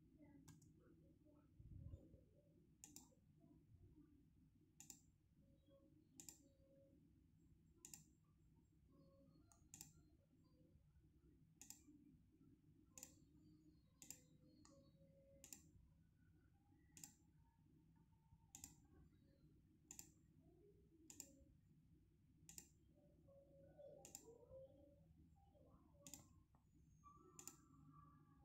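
Faint, sharp computer mouse clicks, irregularly spaced at roughly one every one to two seconds, over a low steady hum.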